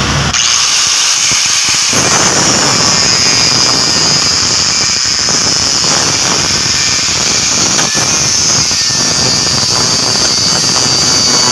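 Angle grinder with a thin metal-cutting disc starting up with a steady high whine, then cutting into a metal alternator bracket held in a vise, adding a rough grinding rasp from about two seconds in.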